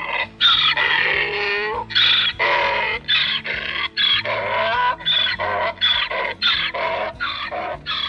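Donkey braying: a run of hee-haw calls, long drawn-out ones in the first half, then shorter calls in quick succession.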